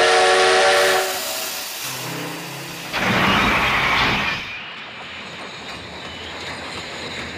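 Steam locomotive sound effect: a chorded steam whistle blows for about a second at the start, then a loud rush of steam about three seconds in, then the train running steadily as it pulls away.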